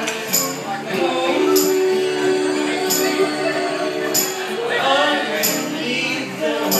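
Live acoustic music: a man and two women singing in harmony over an acoustic guitar, with a sharp high percussive hit about every one and a quarter seconds. A long held sung note in the second and third seconds.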